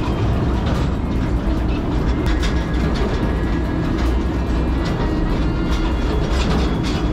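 Narrow-gauge (762 mm) sugar-railway train running along the track, heard from its open passenger car: a steady low rumble and rattle of wheels on rail, with scattered clacks.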